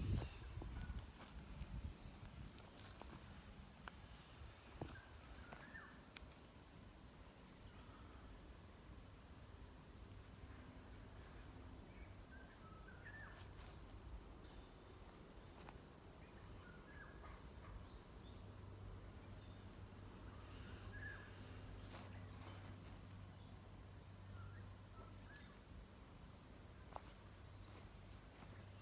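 Steady high-pitched chorus of insects in a forest, with scattered short bird chirps now and then.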